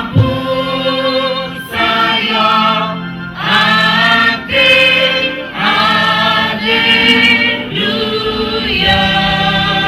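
A church choir singing a gospel anthem in phrases of about a second each.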